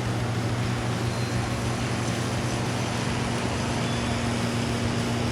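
Log truck's engine running with a steady low drone, amid an even rush of road and wind noise.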